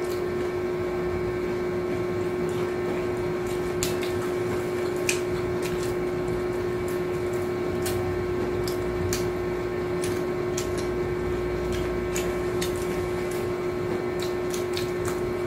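A steady machine hum holding one strong tone, under scattered sharp crunches as hard taco shells are bitten and chewed.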